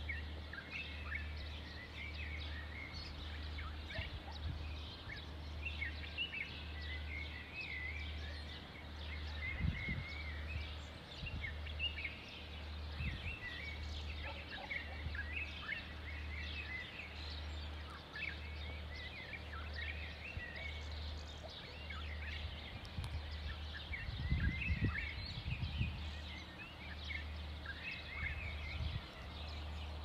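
Dawn chorus of many small birds chirping, short overlapping chirps and twitters throughout. Underneath runs a low hum that pulses about once a second, with a few low bumps midway and near the end.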